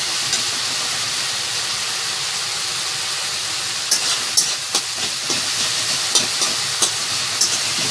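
Tomato and onion gravy cooking in oil in a pan, sizzling with a steady hiss. From about halfway, short sharp pops and clicks come every half second or so.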